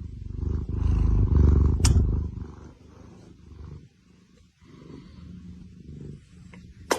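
A cat purring loudly close to the microphone, a low, rapid rumble for the first two and a half seconds that then drops away to quieter sounds. A sharp click comes near the end.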